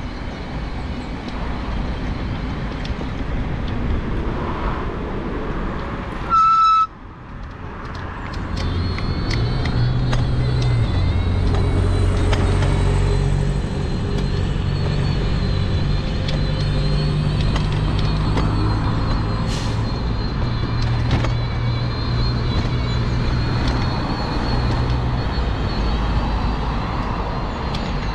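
A vehicle horn gives one short toot about six seconds in, over road traffic. Then a bus's diesel engine drones low and louder as it passes and pulls away along the road.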